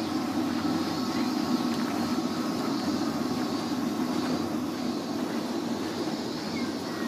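Steady low background rumble with a faint steady hum; no distinct event stands out.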